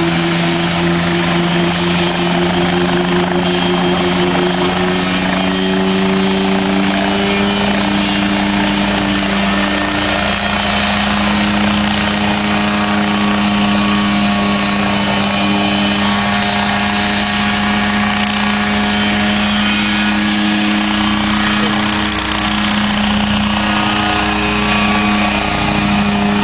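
Small homebuilt Nolan coaxial helicopter running at lift-off power: steady engine and rotor noise as it lifts off the grass, hovers and flies away. The engine note shifts slightly up and down as the power changes.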